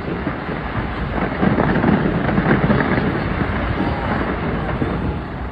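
Large fireworks display going off in quick succession: a dense, continuous rumble of rapid bangs and crackling.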